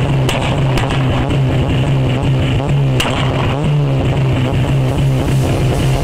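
Citroën Saxo VTS's 1.6 16-valve four-cylinder engine held steady on its Omex launch-control limiter at about 4,000 rpm. It breathes through a BMC induction kit and a 2-inch Supersprint straight-through exhaust. A few sharp cracks cut through, the strongest about three seconds in.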